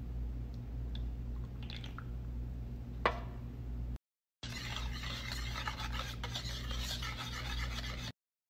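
Wire whisk beating a batter in a ceramic mixing bowl: a fast, dense scraping and clinking through the second half. Before that there is a low steady hum with a few light ticks and one sharp clink about three seconds in.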